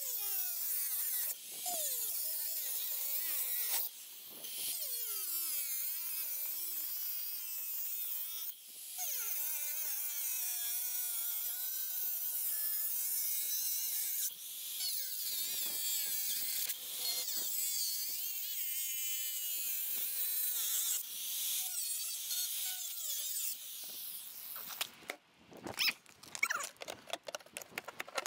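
Makita angle grinder cutting into the steel side of a fire safe and its grey concrete-like fill, its motor pitch sagging and recovering as the disc bites. The grinder stops about 25 seconds in, followed by irregular scraping and knocks as a metal bar is worked into the cut.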